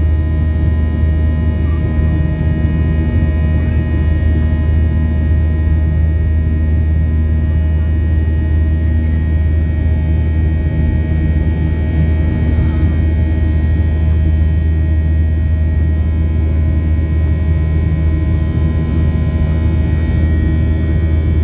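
Cabin noise inside a Boeing 737-800 in flight: a steady, loud low drone from the CFM56-7B engines and airflow, with several steady whining tones above it.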